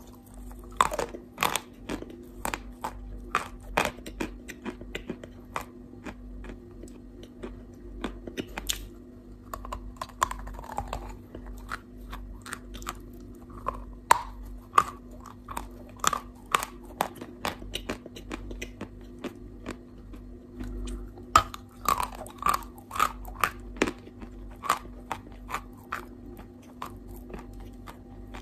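Chalk being bitten and chewed: a steady stream of sharp crunches and crumbling clicks, irregular and close together, over a faint steady low hum.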